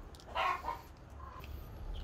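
A short animal call about half a second in, in two quick parts, over a low steady hum.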